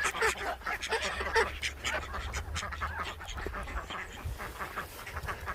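Ducks quacking softly and chattering, with many quick clicks and taps among the calls.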